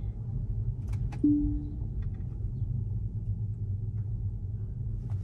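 Steady low road and tyre rumble inside a Tesla's cabin as it rolls slowly, with a couple of faint clicks and a short low tone that fades out, about a second in.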